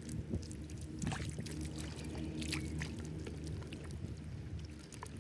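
Hands digging and sifting through wet mud and shallow muddy water: faint squelches, drips and trickles over a low, steady rumble.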